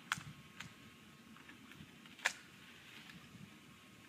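A few faint, sharp clicks in an otherwise quiet stretch, the loudest about two seconds in.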